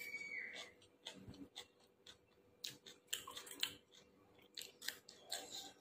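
Faint close-up eating sounds: a mouthful of chicken biryani being chewed, with irregular small clicks and crackles. A brief high squeak sounds right at the start.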